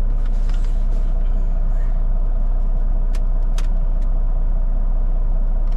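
Steady low rumble of an idling semi-truck diesel engine heard from inside the cab, with two short clicks about half a second apart near the middle.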